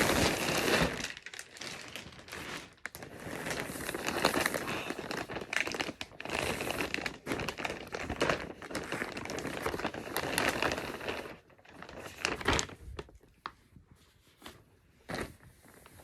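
Packaging crinkling and rustling as a clothing set is unwrapped, with some tearing. Near the end it gives way to quieter handling and a few sharp knocks.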